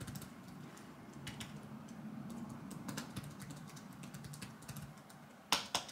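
Typing on a MacBook laptop keyboard: a steady run of light key clicks, with a couple of louder clicks near the end.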